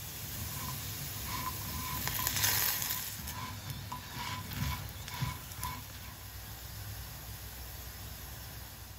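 Diced potatoes frying in oil in a nonstick pan with a steady sizzle, while a silicone spatula scrapes and turns them in a run of short clicks and scrapes between about one and six seconds in.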